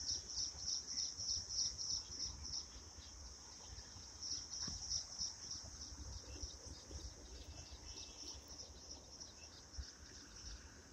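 Insect chirping in short, high-pitched pulses, about three a second, with a pause of over a second early on; it grows fainter in the second half. Low rumble from wind or handling on the microphone underneath.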